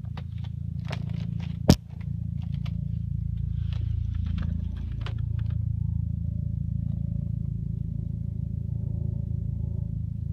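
A steady low hum with scraping and clicking over the first few seconds and one sharp knock about two seconds in.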